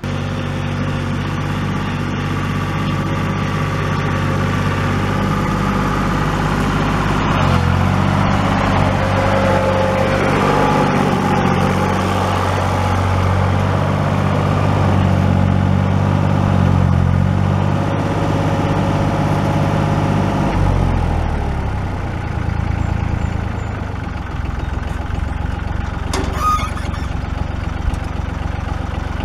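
1981 compact tractor's engine running steadily while pulling a two-bottom plow through the soil, then throttled back to idle about 20 seconds in as the tractor comes to a stop.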